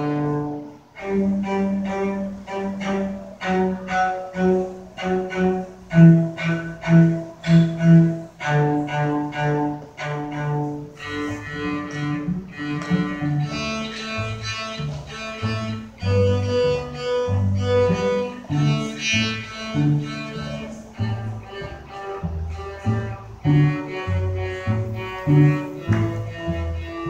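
Two cellos played with the bow in a duet, a steady run of separate notes; from about eleven seconds in a lower line sounds under the higher one.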